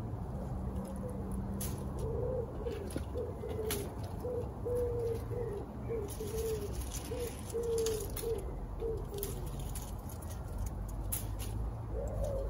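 A pigeon cooing, a run of about a dozen low, evenly spaced coos from about two seconds in until about nine seconds, with another coo near the end. Scattered light clicks and rustles of bramble leaves and stems being handled as blackberries are picked.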